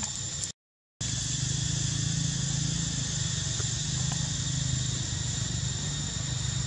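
Steady outdoor background: a continuous high, even insect drone over a low rumble, broken by about half a second of dead silence near the start.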